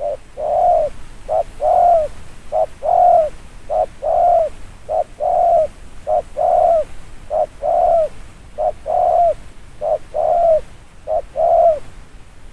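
Spotted dove (cu gáy) cooing rapidly in a steady rhythm: a short note then a longer coo that drops at its end, repeated about ten times, roughly once a second.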